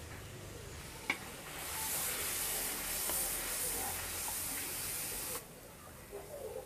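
Spice paste frying in hot oil in a large wok as it is stirred with a metal spatula. The oil sizzles, louder from about one and a half seconds in, then cuts off suddenly about five seconds in. There is one light tap about a second in.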